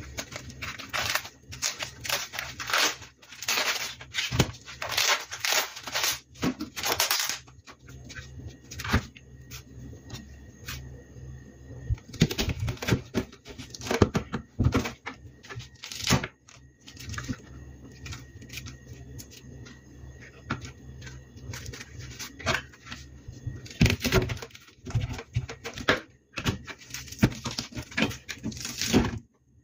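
An ear of corn being husked by hand: the leaves crackle and tear in dense bursts for the first seven seconds or so and again near the end. In between come scattered sharper knocks of a kitchen knife cutting on the cutting board. A steady low hum runs underneath.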